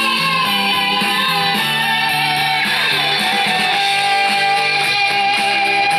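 Rock music with electric guitar, played from a vinyl LP on a turntable and heard through a stereo system's loudspeakers.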